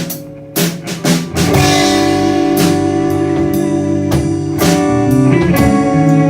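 Live rock band playing an instrumental passage: electric guitar chords over bass and drum kit. A few sparse drum hits in the first second and a half, then the full band comes in with a cymbal crash and plays on.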